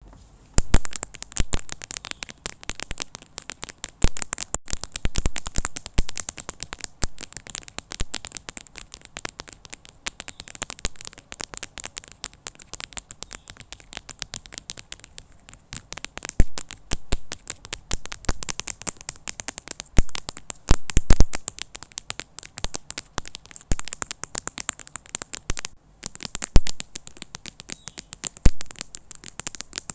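A screen giving off typing sounds: fast, irregular clicking, several clicks a second and uneven in loudness, with a few louder clusters about 4, 16–17 and 20–21 seconds in.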